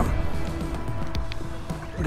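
Background music over a low wind rumble on the microphone.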